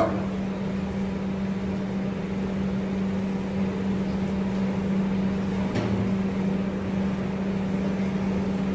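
Steady mechanical hum and fan noise from commercial kitchen equipment, with a single brief knock about six seconds in.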